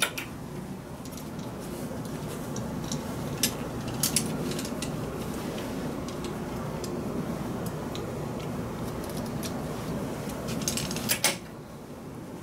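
Clothes hangers clicking and clinking against a wall hook and each other as garments are handled and taken down, over a steady rustle of the clothing. A quick cluster of clicks comes near the end, after which the rustle stops.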